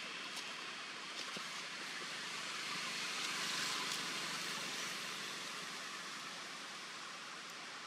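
Steady outdoor background hiss with no clear single source, swelling slightly about three and a half seconds in, with a few faint clicks.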